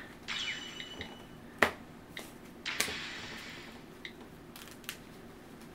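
Cards being handled on a table during play: a few sharp taps, the loudest about a second and a half in, and a brief rustle of cards sliding around three seconds in.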